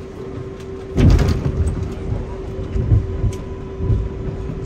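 New York City subway train running along the track: a steady low rumble with a constant hum. About a second in, a sudden loud rush of noise; then several heavy low thumps from the wheels and track.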